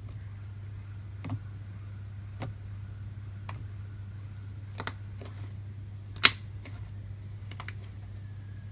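Fingers poking and pressing thick, soft cream cheese slime, giving a few short sharp pops and clicks at irregular intervals, the loudest about six seconds in, over a steady low hum.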